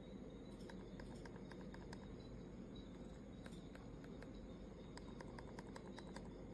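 Faint, irregular clicking from a Ugreen wireless computer mouse being handled and tried out, over a low steady background hum.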